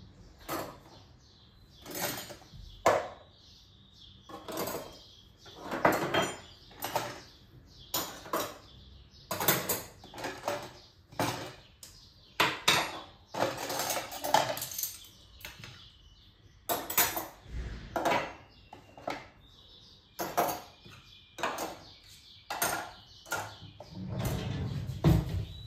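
Metal cutlery clinking as spoons and forks are dropped one by one into a plastic cutlery tray in an open kitchen drawer: a long run of short, sharp, irregular clinks.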